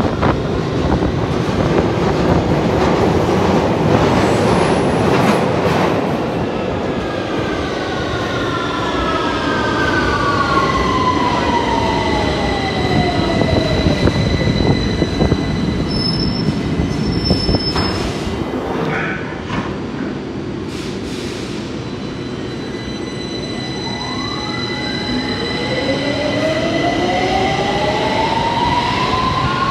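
London Underground tube trains in the station. First comes the heavy rumble of a train running along the platform. Then a whine falls in pitch as a train slows, and near the end a whine rises as a train pulls away.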